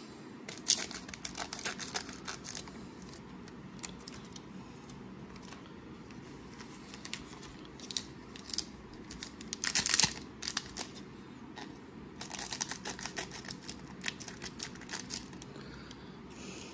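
Scissors snipping the tops off plastic hockey-card pack wrappers, the wrappers crinkling as they are handled. The snips and crackles come in three bursts, with quieter handling between them.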